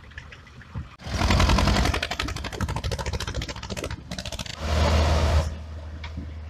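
Vintage diesel tractor engine working hard, its exhaust beating in rapid, loud pulses. It comes in two loud spells, from about a second in and again around five seconds, then settles to a steady low drone.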